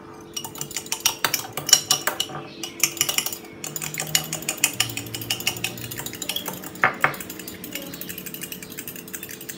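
Metal spoon beating a raw egg with salt and pepper in a small glass bowl: a rapid, uneven run of clinks and scrapes against the glass.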